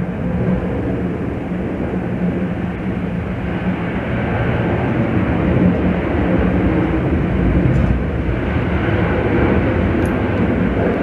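A steady mechanical drone with a low hum, growing a little louder about four seconds in.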